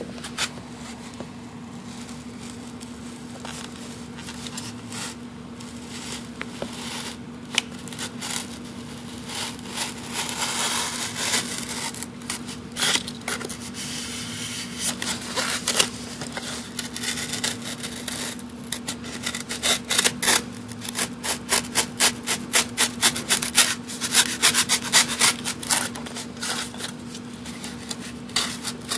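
Utility knife blade cutting through the foam of an RC flying wing in short back-and-forth sawing strokes, slicing a thin layer off the bottom of the bay. The strokes come quicker and louder in the second half.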